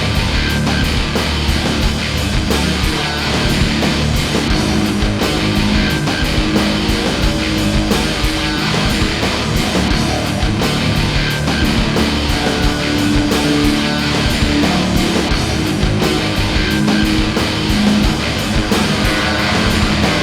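Loud hard-rock music with distorted electric guitar and a steady driving beat.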